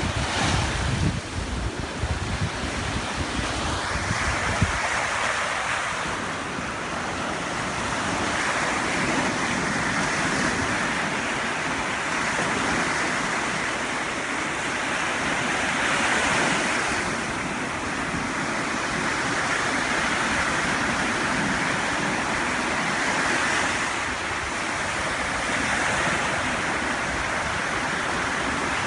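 Ocean surf breaking and washing ashore, a steady rush that swells and ebbs every few seconds. Wind buffets the microphone with low rumbling gusts for the first few seconds.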